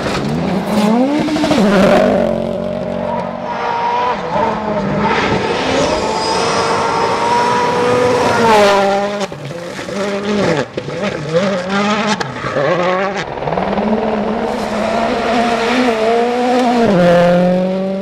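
World Rally Cars' turbocharged four-cylinder engines revving hard as they pass on a rally stage, the pitch climbing and dropping again and again through gear changes, in several short passes one after another. Scattered sharp clicks come near the middle.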